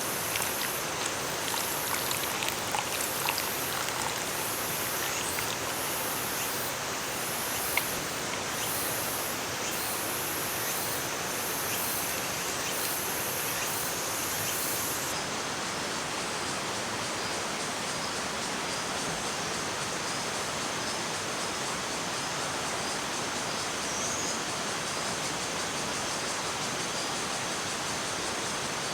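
Mountain stream rushing steadily over rocks. High insect song pulses about once a second over it and stops about halfway through.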